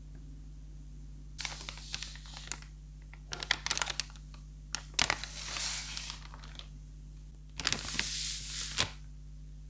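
Hands handling small plastic pieces and packaging: clicks and rustling in four short spells.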